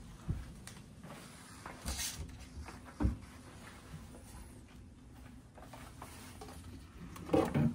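Wooden cabinet and wardrobe doors being opened and handled, with a few short knocks and thumps; the loudest comes near the end.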